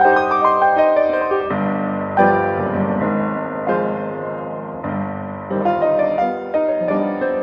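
Solo piano music: a melody over changing chords, with notes struck and left to ring, as in a silent-film accompaniment score.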